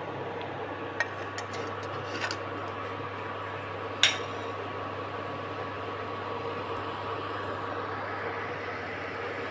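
Gas stove burner running with a steady hiss under a pan of water, with a few light clinks of kitchen utensils, the sharpest about four seconds in.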